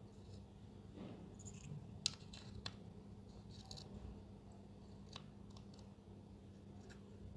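Faint, scattered clicks and snips of small hand tools on a model car's parts, the sharpest about two seconds in, over a steady low hum.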